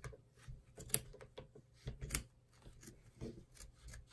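Small scissors snipping through fabric and batting along an edge, a run of short, irregular snips, the sharpest about one and two seconds in.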